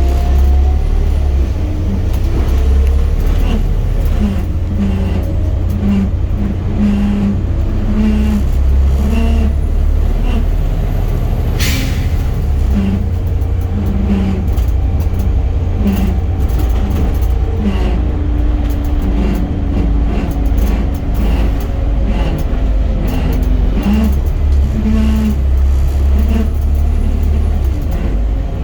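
Volvo B7 bus on the move, its drivetrain rumbling low and steady, with the weird axle noise: a short hum that pulses on and off about once a second. A single brief sharp sound comes about twelve seconds in.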